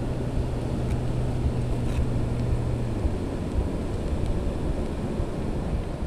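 Wind noise on the microphone, a steady low rush, with a low steady hum underneath that stops about three seconds in.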